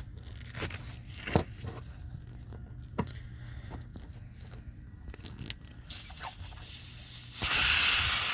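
Pliers clicking and scraping as a nail is worked out of a truck tire's tread; about six seconds in a steady hiss of air escaping through the nail hole starts and grows louder, the tire now leaking.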